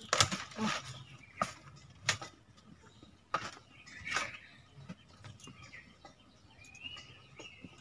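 Scattered rustles and light knocks as leafy drumstick (moringa) branches are shaken and handled against a woven bamboo tray, a few sharp strokes about a second apart.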